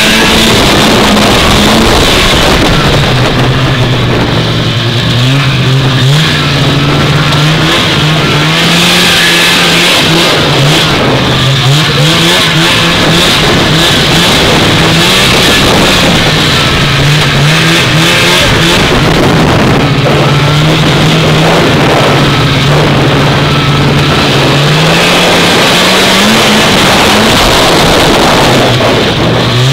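Vintage two-stroke snowmobile engine running loud and close while riding, its pitch stepping up and down repeatedly as the throttle is worked.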